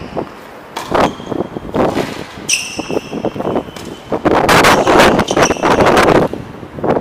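Tennis rally on a hard court: a ball struck by rackets and bouncing in sharp pops, with shoes squeaking on the court surface. A stretch of loud rushing noise runs for nearly two seconds past the middle.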